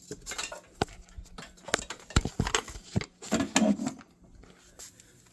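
Irregular clicks and knocks of tools and small parts being picked up and set down on a hard surface, with a short, louder low sound about three and a half seconds in.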